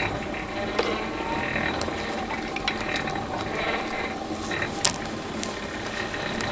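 Forge blower running as air is fed to a freshly lit coal-forge fire, a steady whirring of gears that swells and falls about once a second. A few sharp clicks sound through it, one louder near the end.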